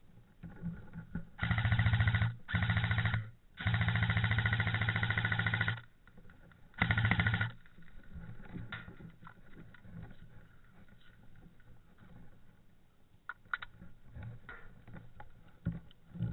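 Airsoft gun firing four full-auto bursts, a rapid even rattle of shots. The third burst is the longest, about two seconds. After the bursts come a few faint scattered clicks.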